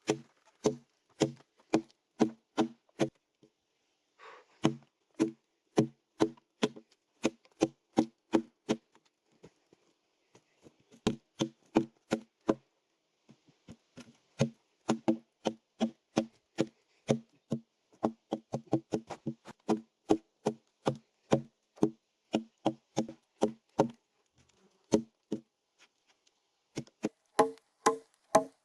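Hammer striking in quick runs of sharp knocks, about three a second, each with a short ringing note, with brief pauses between runs: nails being driven into wooden planks.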